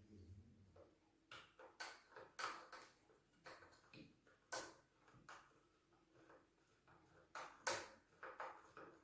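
Faint, irregular clicks and light knocks of small chainsaw parts and tools being handled and fitted during assembly, about a dozen over the stretch.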